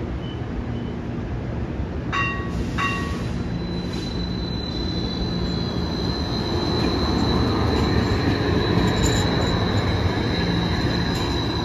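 Inekon streetcar moving off and passing close by. Two short chimes sound about two seconds in; then a steady high-pitched squeal starts and holds while the rumble of the car grows louder as it rolls past.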